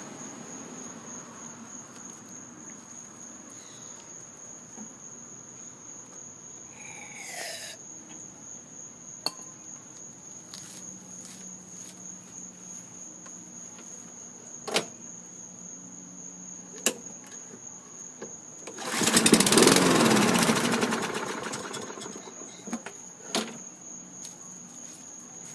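Toro Recycler mower's Briggs & Stratton 675 engine, run without its carburetor on fuel squirted into the cylinder, firing briefly about three quarters of the way in and dying out after about three seconds. Crickets chirp steadily throughout, with a few sharp clicks from handling the mower.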